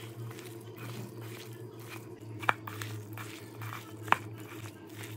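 Someone chewing and crunching pieces of raw green mango close to the microphone, with two sharp clicks about two and a half and four seconds in, over a steady low hum.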